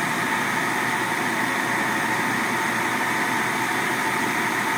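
Food processor motor running steadily, its blade grinding a thick falafel mixture of soaked fava beans and chickpeas.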